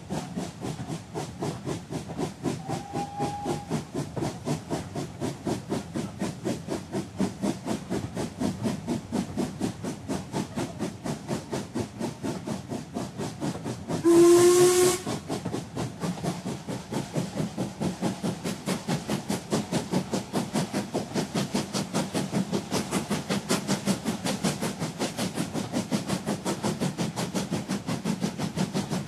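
Recorded sound of a steam locomotive working: steady rhythmic exhaust chuffs, about three a second, with one short blast of the steam whistle halfway through, the loudest moment.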